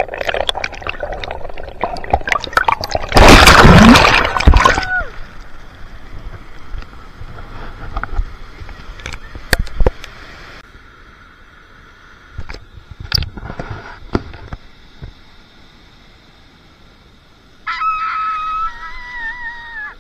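Ocean surf washing and gurgling around the microphone, with two loud rushes of water in the first five seconds, then a quieter uneven wash. A short wavering tone comes in near the end.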